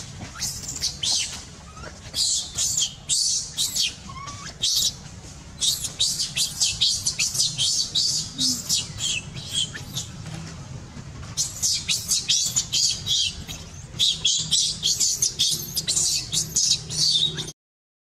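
Many short, high-pitched chirping calls in rapid bursts over a low steady hum, breaking off suddenly near the end.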